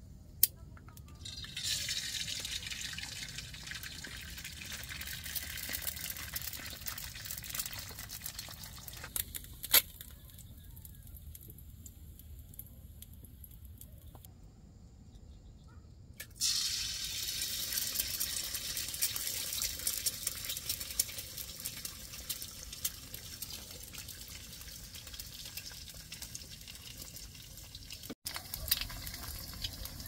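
Food sizzling as it fries in a pan on a portable gas camp stove, with two sharp clicks. The sizzle drops away for a couple of seconds about halfway through and comes back louder.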